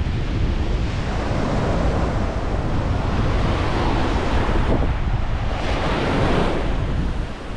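Wind buffeting the microphone over surf breaking and washing up the beach, with a louder wash of surf swelling about six seconds in.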